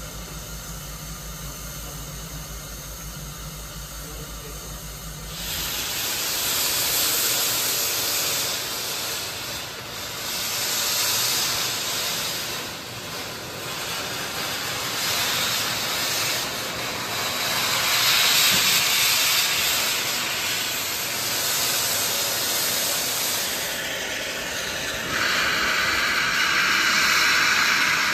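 Steam locomotive venting steam: a loud hiss that starts about five seconds in, after a low steady hum, and swells and fades, growing sharper near the end.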